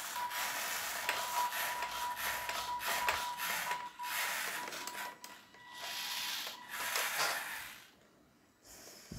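Small DC gear motors of a homemade four-wheel RC car running as the car drives. A gritty whirr carries a thin steady whine. It runs for about three and a half seconds, then in a few shorter spurts, and stops about eight seconds in.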